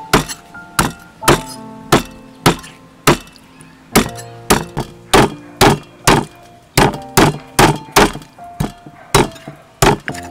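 A cleaver chopping raw duck into pieces on a wooden chopping board: a run of sharp, heavy chops, about two a second, with background music underneath.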